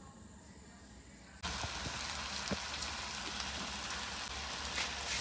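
Diced pork sizzling in hot oil in a steel wok, starting suddenly about one and a half seconds in after a near-quiet start, with a few faint clicks.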